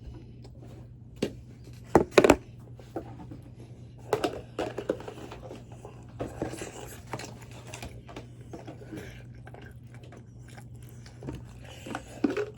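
A person eating fries from a cup: handling knocks and scrapes of the cup, with the loudest knocks about two seconds in, then chewing and crunching. A steady low hum runs underneath.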